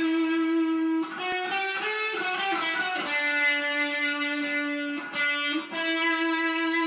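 Electric guitar playing long sustained notes that slide from one pitch to the next. A busier run of changing notes comes about a second in, then a lower held note, and a brief break about five seconds in before the higher held note returns.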